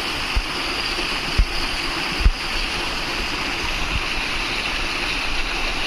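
Steady rushing of flowing water, with a few low thumps of wind on the microphone.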